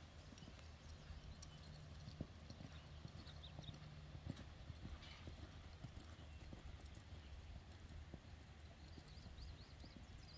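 Faint hoofbeats of a horse moving over a sand arena: soft, irregular knocks over a steady low rumble.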